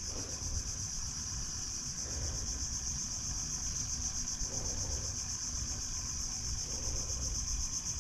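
Steady, high-pitched insect chorus, one unbroken shrill buzz, over a faint low rumble.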